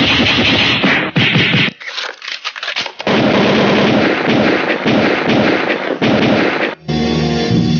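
Canned sound effects played from a V8 sound card's effect buttons: loud gunfire-like bursts in quick succession, changing near the end to a short tonal effect with steady pitches.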